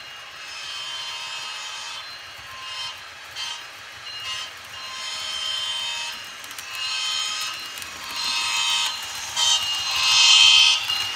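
Sound decoder in an HO-scale Bachmann ACS-64 electric locomotive model sounding its horn through its small onboard speaker: a series of long and short blasts, each a steady chord with no low end, loudest near the end as the model passes close.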